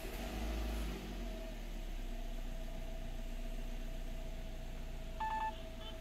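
Suzuki Swift 1.3-litre four-cylinder engine just started and idling steadily, a bit higher than normal, from a lean condition caused by a vacuum leak at the brake booster. A short electronic beep sounds about five seconds in.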